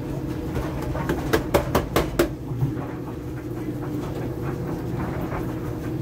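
Kenmore 400 series clothes dryer running with a steady low rumble and hum, with a quick run of sharp knocks about one to two seconds in.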